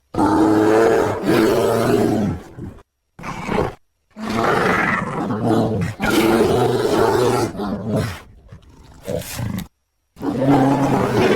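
Marsican brown bear calling loudly in a run of about five separate deep, pitched calls, each lasting one to two seconds, with short dead-silent gaps between them.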